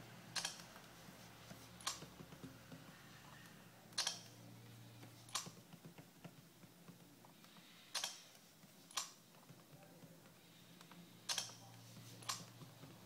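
About eight sharp clicks at irregular spacing, some in quick pairs, as an iPad mini is repeatedly locked, woken and unlocked by hand.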